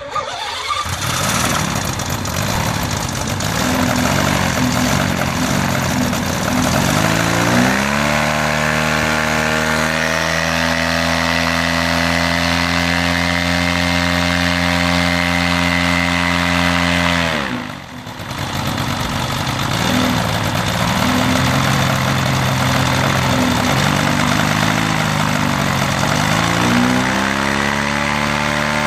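Rebuilt König two-stroke radial paramotor engine with its propeller, catching right at the start and running rough and low. About seven seconds in it revs up to full power and holds steady for about ten seconds, then drops suddenly back to an uneven idle. Near the end it revs up again and holds high revs, in a ground run.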